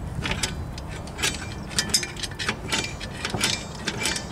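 Rear parking brake star-wheel adjuster of a 2011 Honda CR-V being levered round with a flathead screwdriver through the access hole in the rotor, giving a run of irregular sharp clicks, about two or three a second, as the teeth are stepped over. The adjuster is being backed off to loosen the parking brake shoes so that the stuck rotor can come off.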